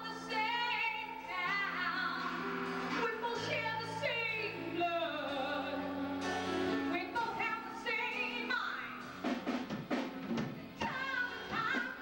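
A woman singing with vibrato into a microphone, backed by a live band with sustained bass notes; a run of drum hits comes in near the end.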